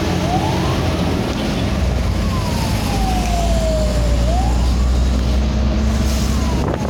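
Emergency siren wailing, its single tone climbing and then sinking slowly over about two seconds, twice, over a steady low rumble.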